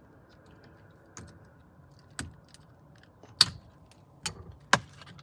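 Sharp plastic clicks and light rattles as the top connector is unclipped and the old spiral cable (clock spring) assembly is worked off a Nissan Titan's steering column: about five clicks, the loudest about three and a half seconds in.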